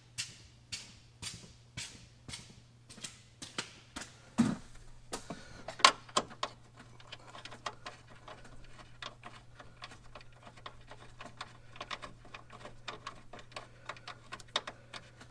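Hand ratchet wrench clicking as a terminal nut is run down on a battery cable: evenly spaced clicks about two a second, then a thump about four seconds in and faster, irregular clicking.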